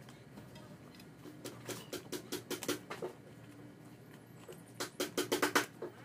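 Hands pressing and tapping around a large speaker's corrugated fabric spider and paper centering shims, giving a run of irregular clicks and taps that grow denser and louder about five seconds in.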